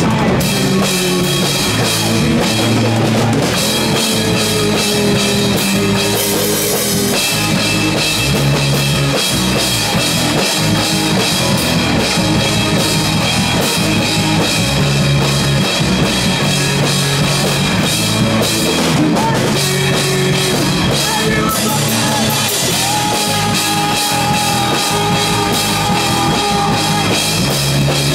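Live rock band playing loud, with drum kit and guitars. A long held note comes in late and bends down at the end.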